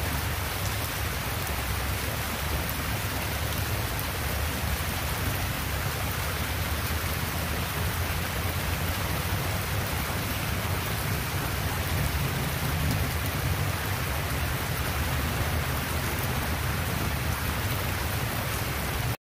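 Steady rain pouring down on tree foliage, an even hiss of drops with a steady low rumble underneath.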